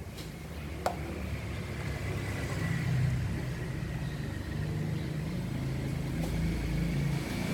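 Low, steady rumble of a running motor, with one sharp metallic click about a second in, like the ladle knocking the aluminium pot.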